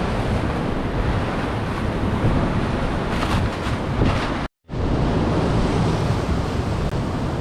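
Sea surf washing steadily, with wind buffeting the microphone. The sound cuts out completely for a moment a little past halfway.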